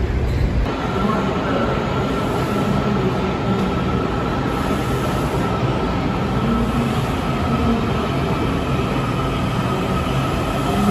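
Washington Metro train pulling out of an underground station, with a steady high electric whine over rumbling wheel and rail noise.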